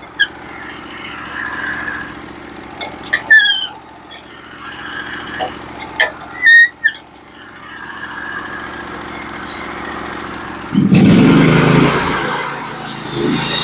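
Norwood HD36v2 bandsaw mill's engine running at a steady idle, with a few sharp metal clanks and short squeaks as the mill head is set up. About eleven seconds in it jumps to a loud, dense sound as the band saw is throttled up and starts cutting through the log.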